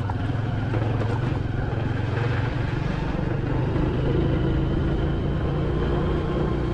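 Motorcycle engine running steadily while riding a rough dirt track, with road and wind noise.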